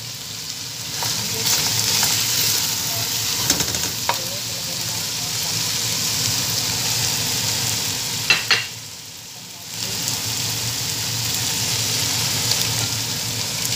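Chicken pieces sizzling as they fry in an aluminium pot, a steady hiss broken by a few sharp clinks against the pot. The sizzle briefly dies down about nine seconds in, then comes back.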